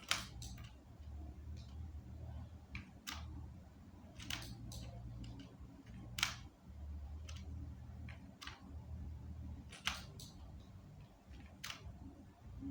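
Computer mouse and keyboard clicks, about a dozen sharp clicks at irregular intervals, over a low steady hum.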